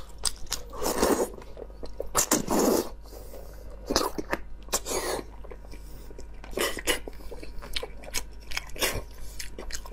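Close-miked eating of saucy braised beef tendon: wet chewing, lip smacks and sucking noises, with a few longer slurps.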